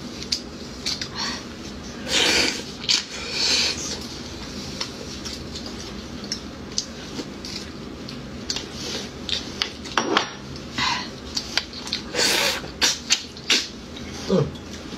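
Chopsticks and a spoon clicking and scraping against roasted beef marrow bones as the marrow is dug out, with a few short wet eating noises.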